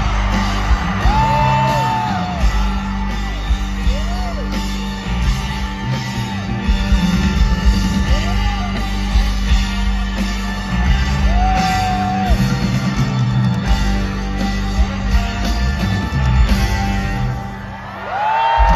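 A rock band playing live in a large venue, heard from among the audience: heavy bass and drums, electric guitar and singing, with yells from the crowd.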